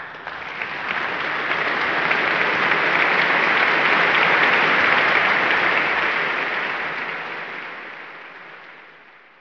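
Crowd applauding, swelling over the first few seconds and then slowly fading away toward the end.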